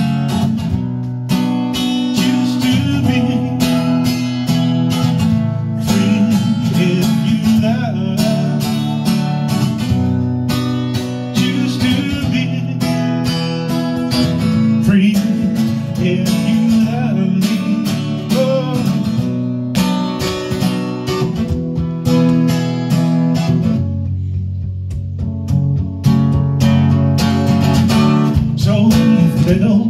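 Steel-string acoustic guitar strummed steadily in a solo instrumental passage, chords ringing under a regular strumming rhythm.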